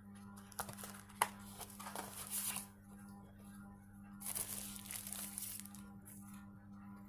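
Smartphone box packaging being handled: plastic wrap and paper crinkling and rustling in two stretches, with a sharp click about a second in.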